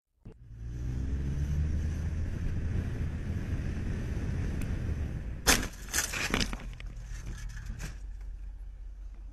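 Motorcycle engine running and revving, then a crash about five and a half seconds in: several loud impacts and clatter over a second or two, after which the engine sound goes on more quietly.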